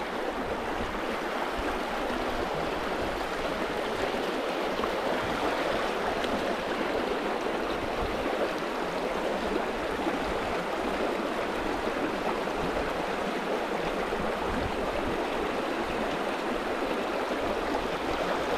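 Creek water flowing steadily, an even rushing babble with no breaks, the creek running at above-average flow.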